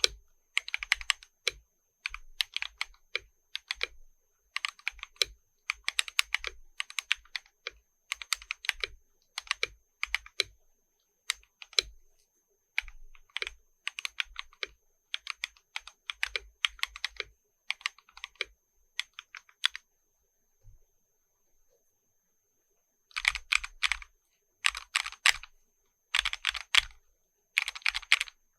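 Typing on a Gammakay LK67 custom mechanical keyboard with XDA-profile keycaps: uneven groups of keystroke clacks, a pause of about three seconds past the middle, then quicker runs of typing near the end.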